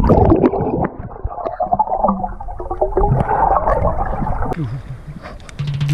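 Muffled underwater sound of water gurgling and sloshing around an action camera held just below the surface, with the high sounds cut away. Music with a steady low bass comes in near the end.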